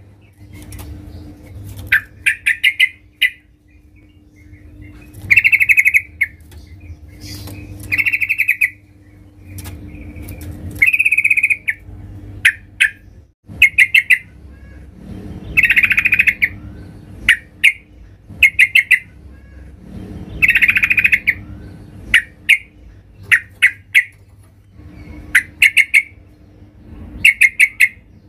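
Female yellow-vented bulbul (trucukan) calling to a male: short bursts of quick chattering notes, repeated every second or two.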